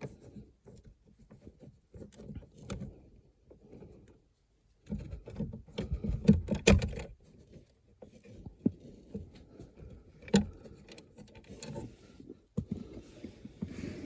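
Scattered clicks, knocks and rustling of hand work with a T20 Torx bit, taking a screw out of a plastic trim panel under the dashboard. The busiest, loudest stretch is about five to seven seconds in, with single sharp clicks later.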